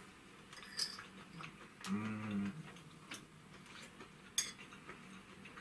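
Metal spoon clinking and scraping against a small bowl of rice while eating, with a sharp clink about four seconds in. A brief hum of voice about two seconds in.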